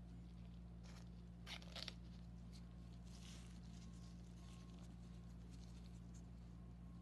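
Near silence: a steady low electrical hum, with a short burst of faint crackling about a second and a half in and soft rustling afterwards.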